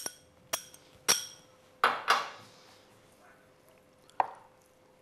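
Metal utensil clinking against a glass mixing bowl: five sharp clinks with a ringing tail, the one about two seconds in longer, trailing off like a brief scrape.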